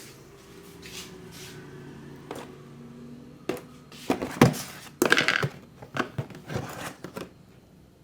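Hands at work in a barber's head massage: quiet rubbing at first, then from about halfway through a quick run of sharp slaps and pats with rubbing in between, the loudest a little after the middle.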